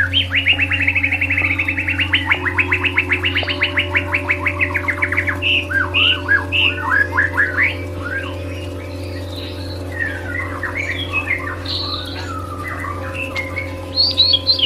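White-rumped shama song: a long, fast run of repeated notes for about five seconds, then varied swooping and chirping phrases, with another quick run of high notes near the end. Under it runs a steady droning music bed of held tones that shift pitch now and then.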